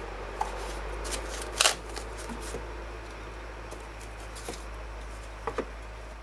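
Packing being handled as a CPU cooler is pulled out of its foam insert in a cardboard box: rustling and scraping with scattered small knocks, the loudest about a second and a half in, over a steady low hum.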